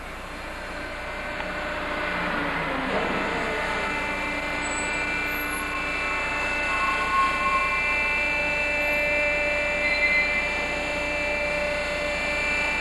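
Hydraulic dock leveler's electric pump unit running, a steady mechanical hum with a high whine, growing louder over the first few seconds as the deck and telescoping lip move.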